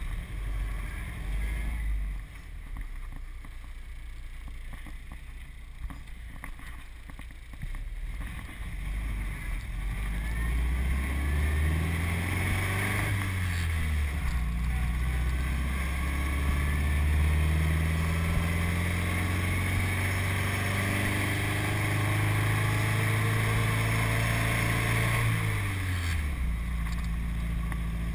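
Four-cylinder engine of a 1929 Ford Model A coupe fitted with twin Stromberg carburettors, heard from inside the cab while driving. It runs low and quiet at first, then pulls harder about a third of the way in and gets louder. Its note climbs, dips once, climbs slowly again for a long stretch and falls away near the end.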